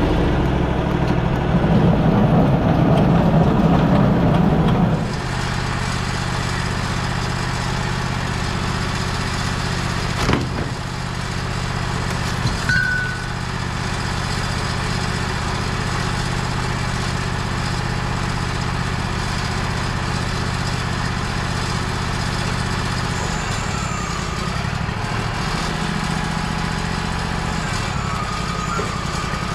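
Wood-Mizer LT35 band sawmill: the blade sawing through a pine log with the engine under load for about five seconds, then the sawmill's engine running steadily at a lower level. A single knock about ten seconds in and a brief squeak a few seconds later.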